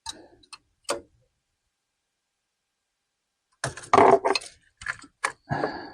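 Hands handling parts in a car's engine bay: three sharp clicks in the first second, then a burst of clicking, rattling and rustling from about three and a half seconds in.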